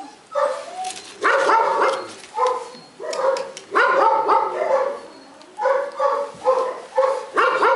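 Several dogs yelping and barking in short, high-pitched calls that come in quick runs, some calls several in a row.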